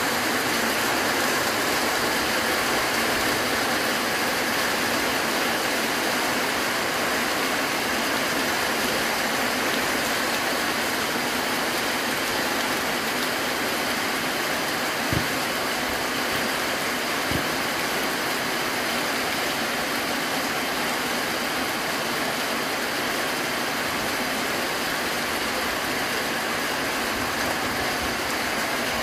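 Steady rain falling on a corrugated roof and wet pavement, an even hiss, with two brief knocks about halfway through.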